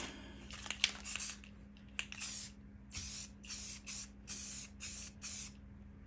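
Aerosol can of black spray paint hissing in a run of about eight short bursts, starting about two seconds in, as another coat goes onto the wheel center caps.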